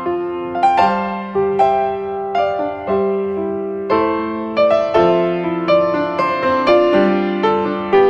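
Background piano music: notes struck at a moderate pace, each ringing on and fading as the next begins.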